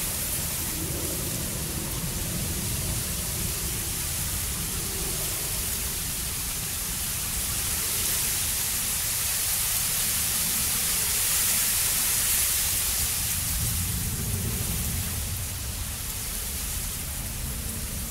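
Steady outdoor city ambience by a canal: an even hiss over a low rumble, growing louder toward the middle and easing off near the end.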